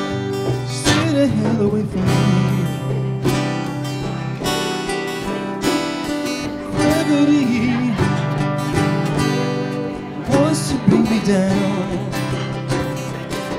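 Live acoustic duo: two guitars strummed together, one of them an acoustic guitar, with a man singing over them in phrases.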